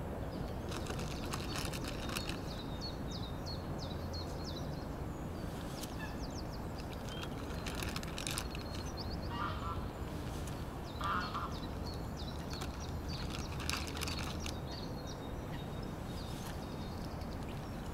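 Waterfowl calling on a lake: two short honks about nine and eleven seconds in, over repeated high chirping of small birds.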